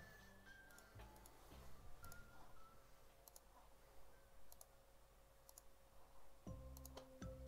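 Near silence with scattered faint computer mouse clicks, and faint background music coming back in near the end.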